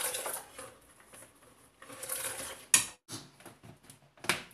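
Corn kernels pouring from a metal bowl into a blender jar of milk, with clinks and knocks of the bowl against the jar. A sharp knock comes just before the 3-second mark, and another near the end as the plastic blender lid is pressed on.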